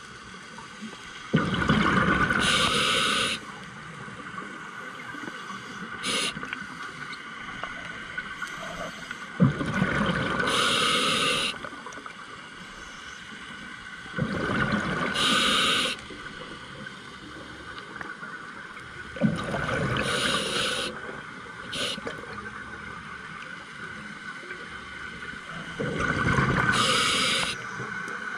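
Scuba diver's regulator breathing, heard close: five bubbly exhalations, each a rush of about two seconds, coming every five to six seconds, with quieter stretches of inhaling between.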